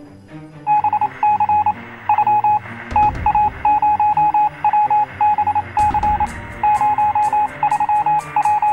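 Background music built around a repeated electronic beep tone in quick uneven groups, like a telephone or telegraph signal, over a shifting bass line. Drums come in about three seconds in and a ticking hi-hat near six seconds.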